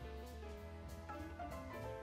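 Background music: sustained pitched notes that shift every half second or so.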